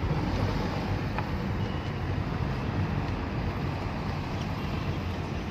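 Steady low rumble of a moving vehicle, with some wind noise.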